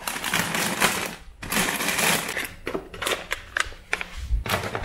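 Plastic snack packets rustling and crinkling as they are handled and pushed onto a shelf, with many short knocks and scrapes among the rustle.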